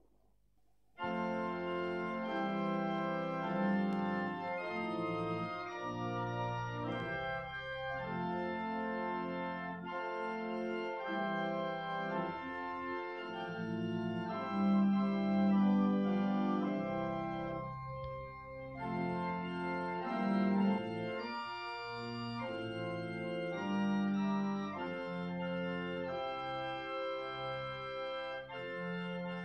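Church organ starts about a second in and plays the closing voluntary after the benediction, in slow held chords that change every second or so.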